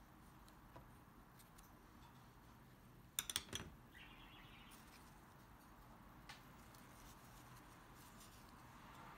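Near silence of quiet hand craft work with organza ribbon, broken by a quick cluster of sharp small clicks from handled tools about three seconds in, and faint scattered ticks elsewhere.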